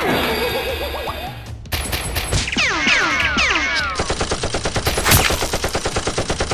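Action-film gunfire sound effect: a fast, even run of machine-gun shots through the second half, preceded by a jumble of overlapping falling whistles.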